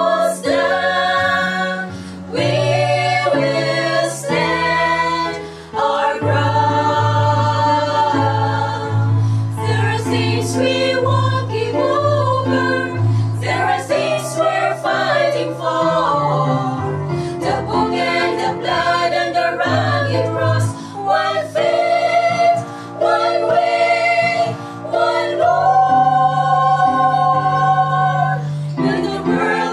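Group of women singing a gospel song together in harmony, with held low accompaniment notes underneath.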